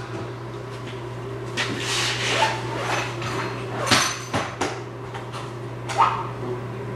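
Metal hand tools clattering and clinking while being rummaged through, with sharper knocks about four and six seconds in.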